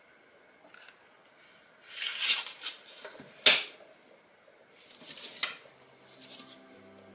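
Seashells, pearls and crafting tools handled on a table: rustling and light clinking in a few short spells, with one sharp knock about halfway through, the loudest sound.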